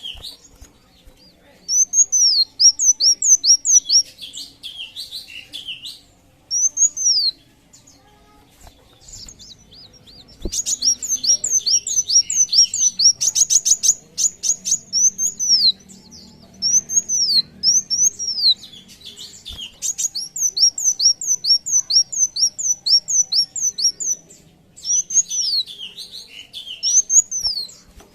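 Sunbird singing: phrases of quick, high, down-slurred notes, several a second, with short pauses between phrases and a faster run of notes about halfway through.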